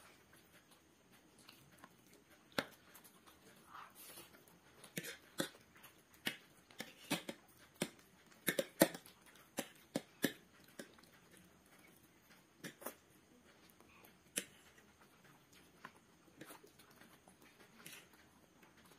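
Metal forks clicking and scraping against ceramic plates with mouth sounds of eating noodles, in scattered irregular clicks, busiest in the middle.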